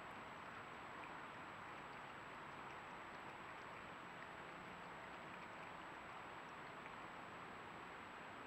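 Faint, steady hiss of a trail camera's microphone with a thin, constant high-pitched electronic whine, and a few faint scattered ticks.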